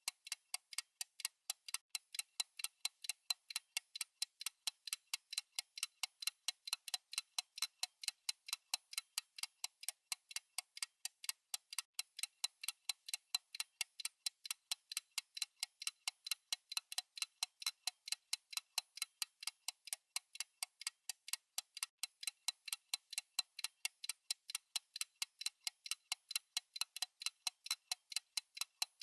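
Fast tick-tock of a countdown timer's clock sound: crisp, evenly spaced ticks, several a second, alternating louder and softer.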